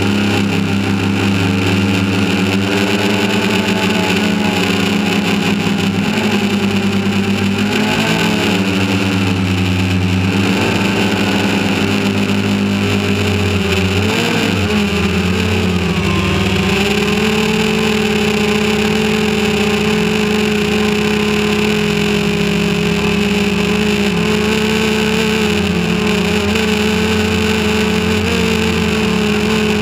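Quadcopter drone's electric motors and propellers humming steadily, heard from the camera mounted on the drone itself; the pitch wavers and shifts as the motors change speed in the middle, then settles into an even hum.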